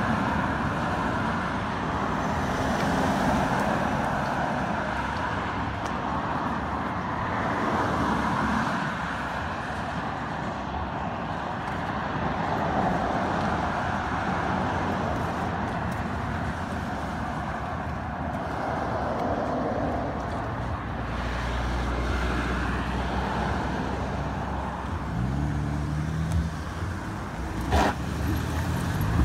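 Road traffic on a busy multi-lane street: cars passing by, the noise swelling and fading with each one. Near the end a nearby engine rises in pitch, followed by a single sharp knock.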